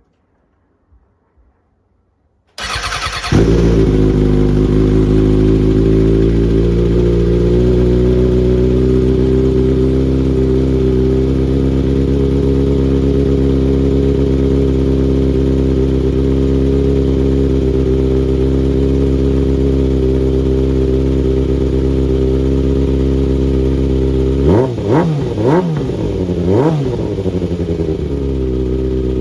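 2011 Kawasaki ZX6R's inline-four engine cranked on the starter and catching within a second, then idling steadily. Near the end the throttle is blipped three times, the revs rising and falling before settling back to idle. The bike now starts after its blown 30 amp fuse was replaced.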